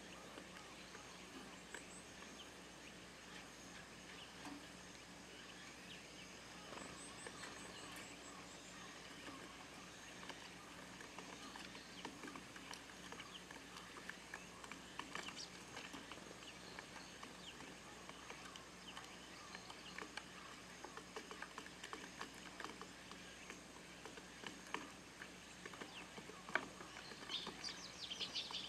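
Eurasian tree sparrows at a feeder, faint: scattered small ticks and taps of pecking at the feed, a short run of high thin calls about seven seconds in, and a burst of rapid chirping near the end.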